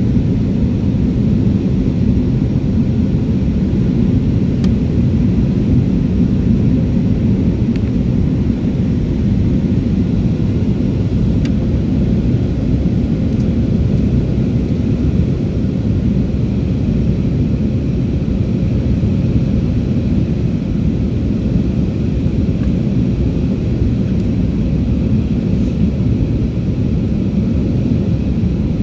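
Airliner cabin noise heard from a window seat beside the wing during the descent: a steady low rumble of engines and airflow.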